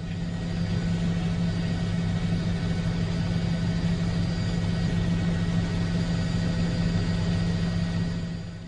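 Steady engine hum, a low drone with faint higher tones, that fades out near the end.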